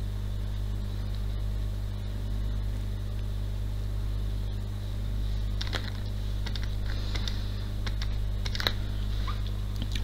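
Steady low electrical mains hum with room tone, with a few faint ticks in the second half.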